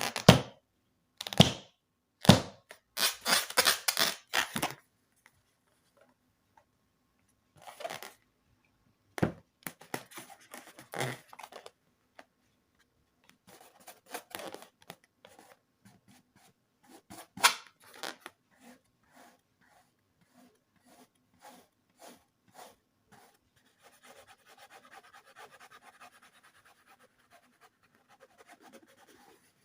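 Scattered crafting handling noises: sharp crackles, taps and scrapes at irregular intervals, then a faint steady scratchy rubbing near the end.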